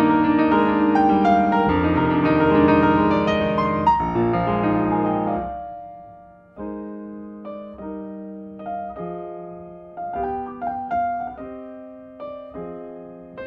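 Solo piano music. A full passage of held chords fades out about five to six seconds in, and a sparser piano piece of single struck notes and chords begins just after.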